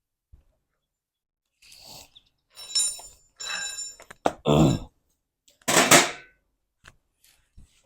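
Sectional garage door being worked by hand after its rollers and hinges were lubricated: a run of separate clunks and metallic rattles with some ringing, the loudest knocks about four and a half and six seconds in.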